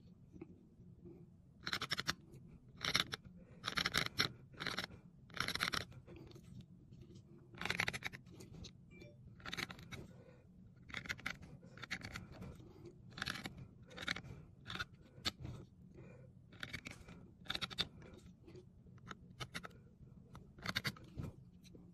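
Seal-carving knife cutting characters into a red seal stone: short gritty scraping crunches as each stroke bites into the stone, about one a second at an irregular pace.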